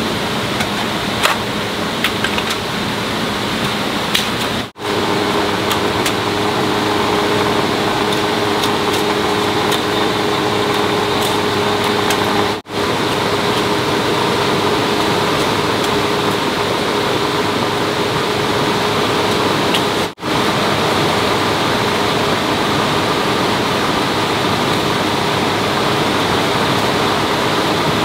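Steady rush of flowing water with a constant machine hum from a small electric water turbine running. The sound cuts out briefly three times.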